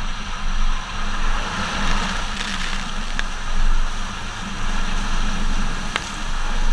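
Toyota Tacoma pickup driving through muddy field ruts: steady engine and tyre noise under heavy wind rumble on the microphone, with two sharp ticks, about three seconds in and again near the end.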